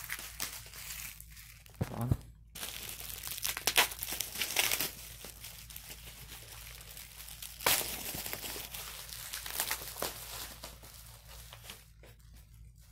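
Mail package wrapping being torn and crinkled open by hand: irregular crinkling with a few sharper rips, getting quieter near the end.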